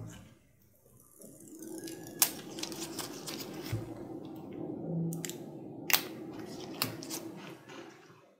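Nitrile-gloved hands handling a small metal wireless battery pack and lifting it out of a cardboard box insert: steady rubbing and rustling with a few sharp clicks, three of them standing out.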